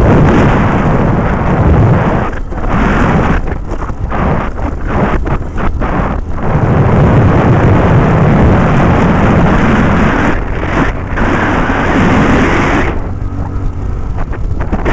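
Loud wind buffeting the microphone on a moving motorcycle, broken by several short lulls. In the lull near the end, the low hum of the 100 cc Mondial motorcycle's engine comes through.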